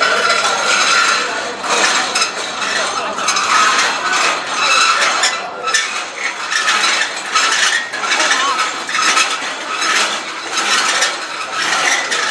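Steel crowd-control barriers rattling and clanking as they are pulled and shoved, a continuous jangle of metal knocking on metal.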